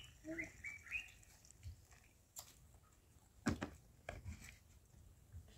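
Faint clicks and knocks of a metal vacuum flask and plastic cups being handled, the loudest about three and a half seconds in. Short high calls, animal or bird, in the first second.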